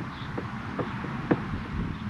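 A few light clicks and taps, the loudest about a second and a half in, over a steady low hum.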